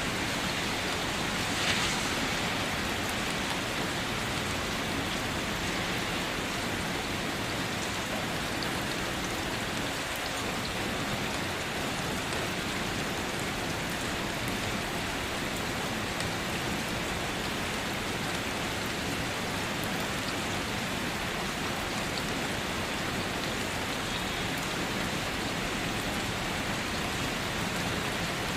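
Steady rain falling on a surface, an even unbroken hiss, with one brief louder spatter about two seconds in.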